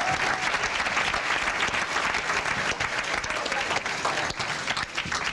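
Audience applauding, thinning out and dying down near the end.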